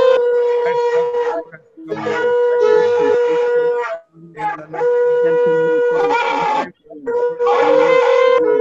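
Several shofars blown over a video call: about four long blasts of a steady held note, each lasting a couple of seconds with short breaks between, other horns overlapping underneath.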